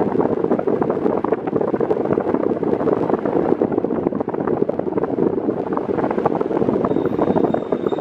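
Airflow from an Arno Xtreme Force Breeze VB40 40 cm fan on its lowest speed blowing across the microphone: a steady, loud rush of wind noise with constant irregular buffeting.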